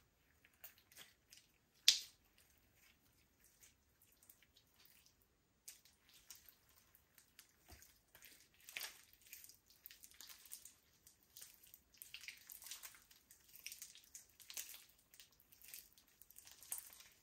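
Slime being squished and worked by hand: soft sticky clicks and small air-bubble pops. There is one sharper pop about two seconds in, and the clicking grows denser in the second half.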